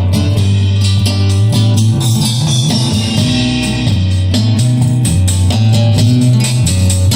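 Guitar music played loud through a Harman Kardon HK 3490 receiver and AAD 260 speakers, its heavy bass line stepping between low notes under plucked guitar.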